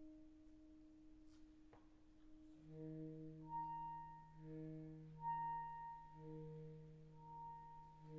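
Saxophone quartet playing quietly: a single held note, then about two and a half seconds in the other saxophones join in slow sustained chords, a low baritone note underneath and a soprano line high above.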